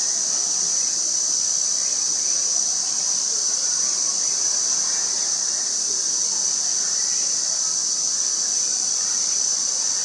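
Insects buzzing in one steady, high-pitched drone that never breaks.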